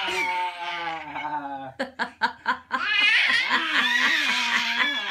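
A man and a baby laughing loudly together: long drawn-out laughs with a wavering pitch, broken about two seconds in by a quick run of short bursts of laughter.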